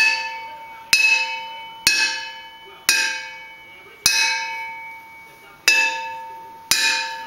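Homemade hang drum pressed from a steel wok, tapped by hand: six strikes about a second apart, each ringing with a bell-like tone and fading away. It is still rough, a shell its maker thinks will probably need fine-tuning.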